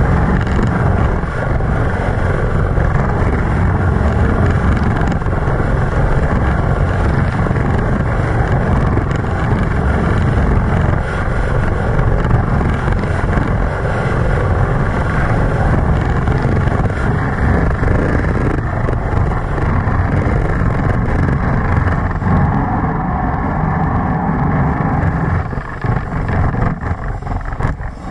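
Luge sled running at high speed down an ice track: the steel runners rumbling and scraping on the ice, with air rushing past. The noise eases off in the last few seconds as the sled slows in the outrun.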